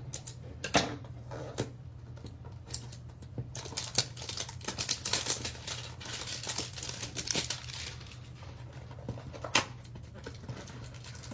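A cardboard hanger box of baseball trading cards being torn open and the stack of cards pulled out. Scattered clicks and taps, with a longer stretch of tearing and crinkling in the middle.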